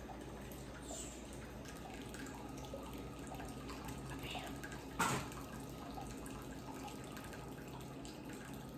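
Quiet kitchen background: a steady low hum with faint small clicks, and one sharp knock about five seconds in.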